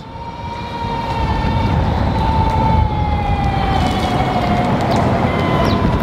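Arc Aileron v2 electric skateboard's geared Fusion drive whining under full throttle. One steady tone sits over a low rumble of wheels and wind, growing louder over the first two seconds, and its pitch sags a little toward the end.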